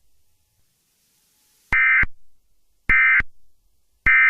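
Emergency Alert System end-of-message data tones: three short bursts of digital screech about a second apart, signalling the end of the alert.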